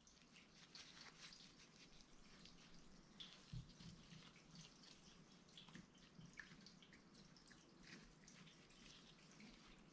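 Near silence, with faint scattered small clicks and ticks of gloved hands handling brake caliper parts and seals, and one slightly louder tap about three and a half seconds in.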